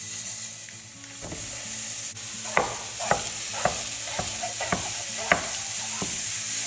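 Turkey breakfast sausage sizzling as it browns in a frying pan, stirred with a utensil that knocks against the pan about twice a second for a few seconds midway.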